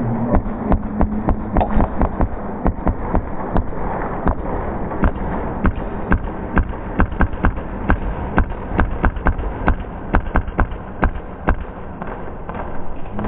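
Airsoft fire in a close-quarters game: many sharp, irregular pops and cracks, a few each second, from shots and BB hits, over a steady rushing background.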